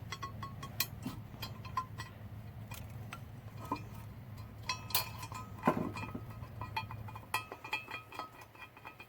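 Irregular metal clinks and taps as a Hooker exhaust manifold and its bolts are fitted against an LS engine's cylinder head, the bolt holes being lined up and the bolts started.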